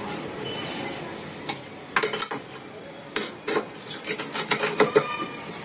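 Steel spanner working the bolts on a car radiator's metal frame: scraping with irregular metallic clinks, some ringing briefly, coming thicker in the second half.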